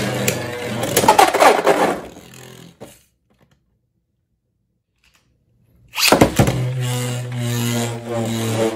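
Beyblade X spinning tops (Cobalt Dragoon 9-60F and Leon Crest 7-60GN) whirring and clashing in a plastic stadium, a steady whirr broken by sharp clacks of collision that dies away after about two seconds as the battle ends. Nearly three seconds of silence follow. About six seconds in, a fresh launch brings a burst of clacks and the steady whirr of spinning tops again.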